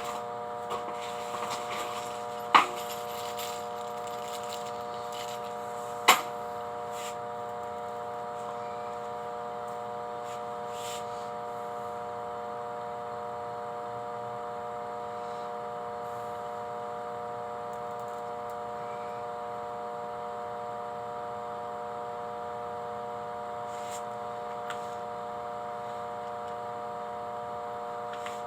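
A steady machine hum made of several steady tones, with two sharp clicks about two and a half and six seconds in.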